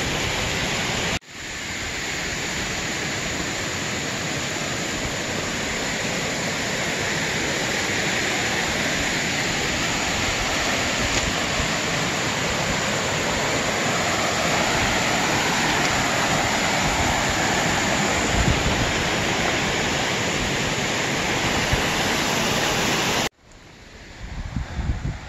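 Creek water rushing steadily over rocks and around a stranded pickup's wheel. Near the end it cuts to quieter wind on the microphone and rustling brush.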